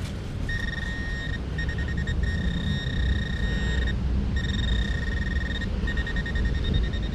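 Metal detector's high single-pitch electronic tone sounding in stretches, some held and some broken into rapid beeps, as a buried target is pinpointed in the dig hole. A low rumble runs underneath.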